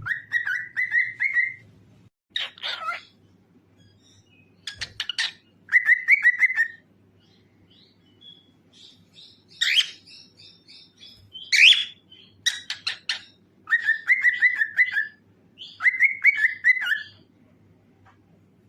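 Cockatiel singing: short warbled whistled phrases alternate with quick runs of sharp chirps, about ten phrases in turn with brief pauses between them.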